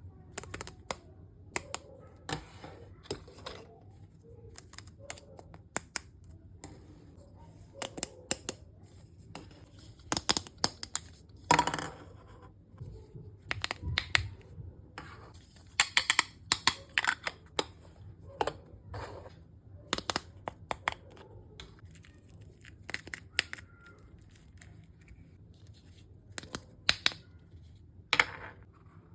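Small plastic toy kitchen pieces and their packaging being handled: irregular sharp clicks and taps mixed with brief rustling and scraping.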